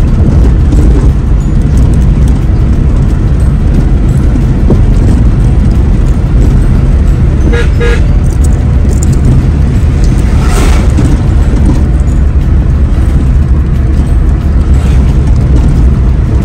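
Road and engine noise inside a moving car's cabin: a loud, steady low rumble. A short vehicle horn toot sounds about eight seconds in.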